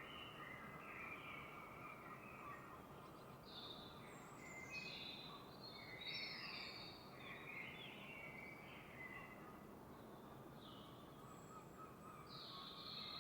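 Several songbirds singing and calling at once, a dawn chorus of short chirps and warbles, over a soft steady background hiss.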